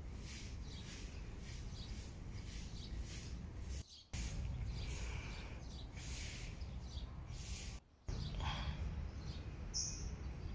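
Outdoor ambience of birds chirping and calling over a steady low rumble, with repeated high chirps in the first half and short high calls near the end; the sound drops out briefly twice.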